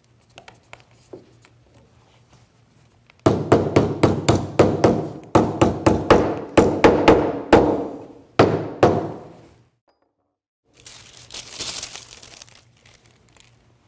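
A claw hammer tapping a freshly glued wooden repair strip down into a routed channel in a plywood panel: a quick run of about eighteen sharp, ringing blows, about three a second, starting a few seconds in and stopping after about six seconds.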